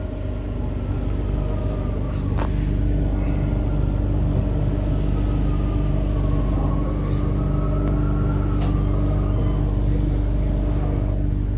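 Rome Metro Line B train running: a steady rumble with a constant hum and a faint motor whine that rises a little past the middle and falls again, with a couple of short clicks.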